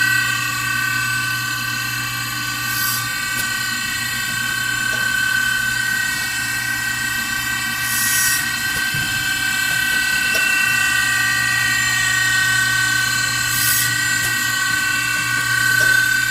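Circular saw blade sharpening machine running with a steady high whine of several tones, with a brief hiss about three seconds in, again about eight seconds in and near the end.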